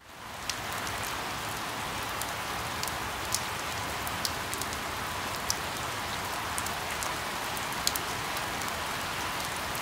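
Steady rain: an even hiss that fades in at the start, with a few sharp ticks of single drops scattered through it.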